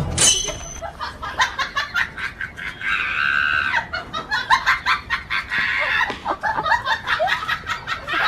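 Chickens clucking and squawking in short, sharp, repeated calls, with a longer squawk about three seconds in.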